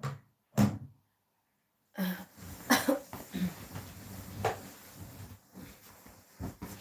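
Short throaty snorts from a sleeper, two about half a second apart, then further irregular snorts and snuffles over a steady hiss.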